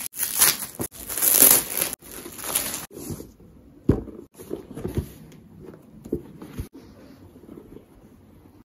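Clear plastic film crinkling and crackling as it is pulled off cardboard boxes for about the first three seconds. A few soft knocks follow as the boxes are handled.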